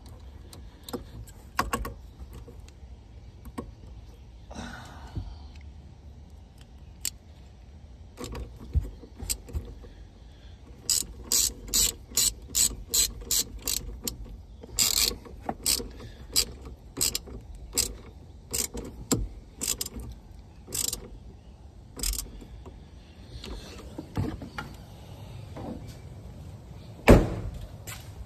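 Hand ratchet clicking in short strokes, about two a second, as the negative battery cable clamp is tightened back onto the battery terminal. A single louder thump comes near the end.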